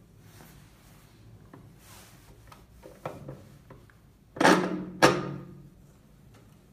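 Light clicks and handling noise from a plastic manual vegetable slicer as a carrot is fitted onto its spindle, then two loud plastic clunks half a second apart about four and a half seconds in, each ringing briefly as the sliding holder is pushed against the carrot.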